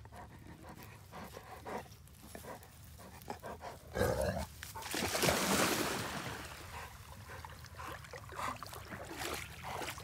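A dog panting, with scattered small rustles and clicks and a louder rushing noise for about two seconds near the middle.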